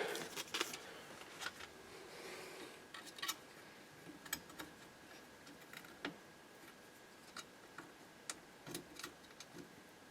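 Faint, scattered clicks and light taps of small metal parts and tools while a spring is worked off a 1955 Chevrolet steering column, over a faint steady high hum.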